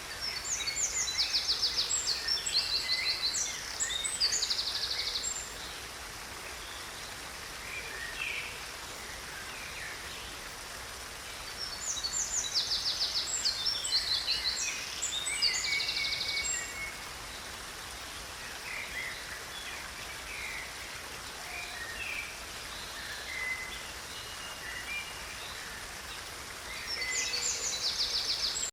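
Steady rush of a flowing creek, with a songbird singing bursts of fast trills and chirps three times: at the start, about midway, and near the end.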